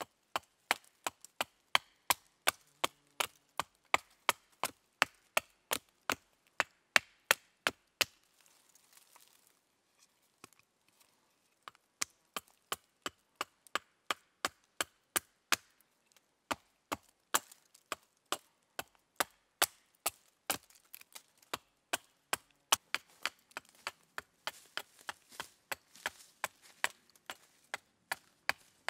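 Small hatchet chopping a wooden stick held upright on a stump, sharp wooden knocks about three a second. The strikes stop for a few seconds about a third of the way through, then go on steadily.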